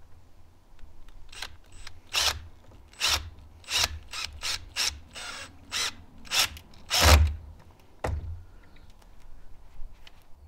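Wooden panel and frame knocking and scraping against each other as they are fitted together by hand: about ten short strokes, the loudest a little after seven seconds in, with a brief rub in the middle.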